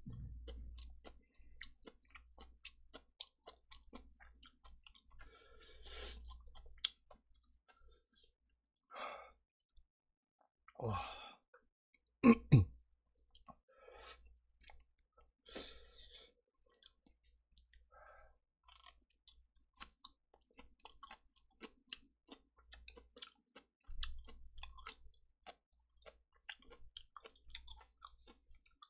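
Close-miked chewing and wet mouth sounds of someone eating stir-fried kimchi and pork belly, with scattered small clicks. Two sharp knocks come about twelve seconds in.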